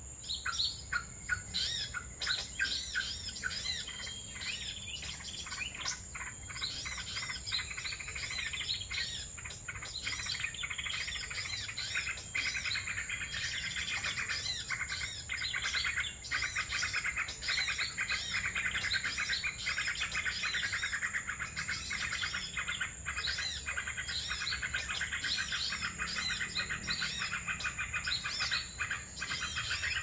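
Small songbirds chirping and twittering rapidly in a dense, unbroken stream of overlapping high notes, over a steady thin high whine.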